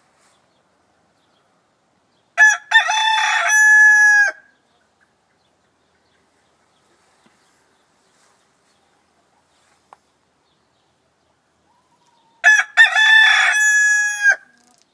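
Rooster crowing twice, about ten seconds apart. Each cock-a-doodle-doo lasts about two seconds, opening with two short notes and running into a long held note.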